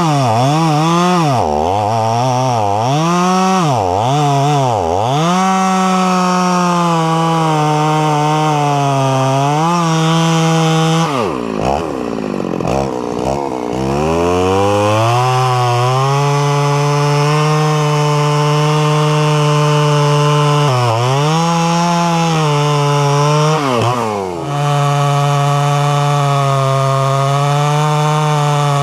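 Stihl MS 390 two-stroke chainsaw cutting red oak logs, running at high revs with its pitch dipping and recovering again and again as the chain loads in the wood. About eleven seconds in the engine drops off toward idle for a couple of seconds, then revs back up and holds steady through a long cut, with a few more dips near the end.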